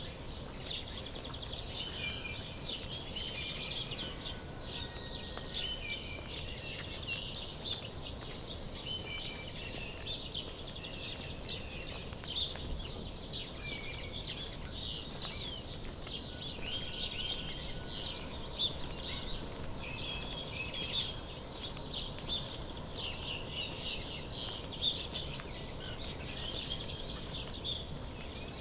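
Several small birds chirping and trilling continuously, many quick overlapping calls, over a steady low background noise.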